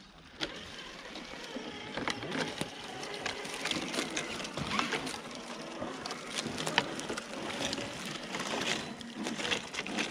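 Dry leaf litter and twigs rustling and crackling, with many irregular small clicks and snaps.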